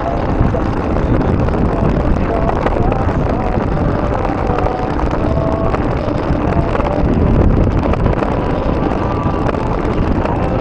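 Wind buffeting the microphone of a moving bicycle, with steady tyre and road noise underneath and a few faint short squeaks.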